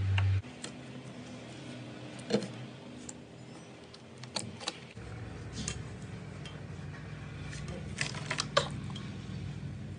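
Slime being handled, giving off scattered small clicks and pops, in a cluster near the end, over a low steady hum.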